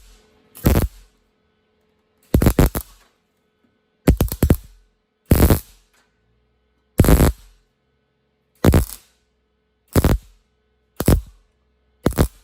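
MIG welder stitch-welding sheet steel: about ten short crackling bursts of arc, each about half a second, with brief uneven pauses between them.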